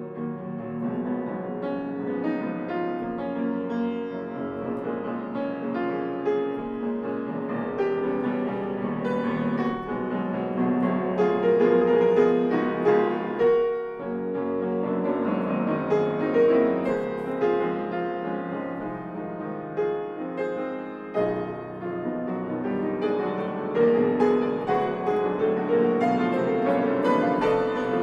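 A grand piano played solo in a classical performance: a continuous, busy passage of many notes that swells louder and eases off a few times.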